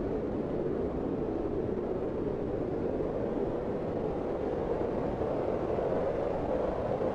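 Steady, smooth wind sound effect: an even rushing noise centred in the low-middle range with a faint rumble beneath, with no gusts or breaks.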